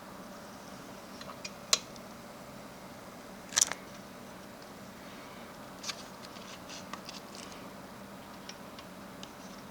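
Sharp clicks and light taps of small computer parts being handled and fitted, the two loudest a little under two seconds and about three and a half seconds in, followed by softer scattered ticks over a steady low hum.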